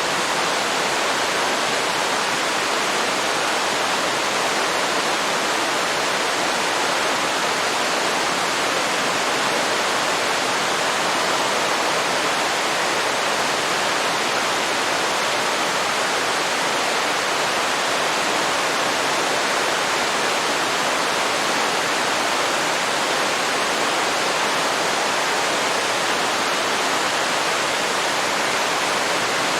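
Waterfall pouring steadily into a river: an even, constant rushing hiss with no change in level.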